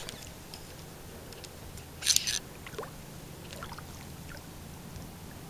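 Fly reel's drag giving line in a short run about two seconds in as a hooked channel catfish pulls against it, with a few faint ticks around it. Under it, faint water lapping and a steady low hum.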